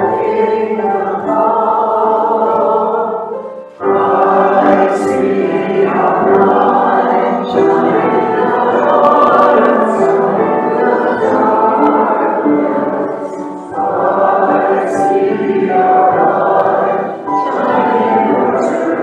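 A group of voices singing a hymn together, in held phrases with short breaths between them about four seconds and fourteen seconds in.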